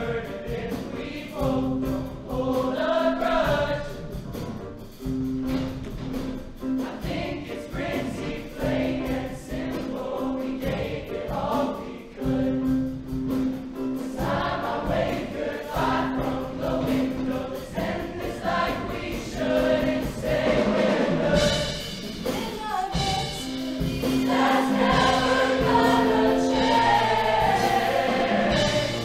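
Show choir singing a song in several parts over instrumental accompaniment, with a repeated held bass note under the voices. The music swells louder about three-quarters of the way through.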